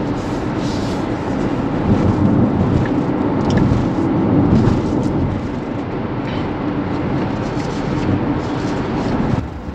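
Road and tyre noise heard inside the cabin of an electric Tesla Model X cruising on a highway: a steady low rush with no engine note. The level dips briefly near the end.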